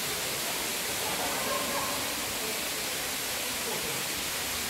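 Steady, even rushing noise at a constant level, with no strokes or rhythm.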